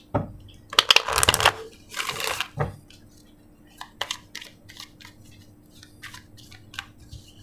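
A deck of oracle cards being shuffled by hand: a quick flurry of card snaps about a second in, a short rushing slide of cards at about two seconds, then scattered light card clicks.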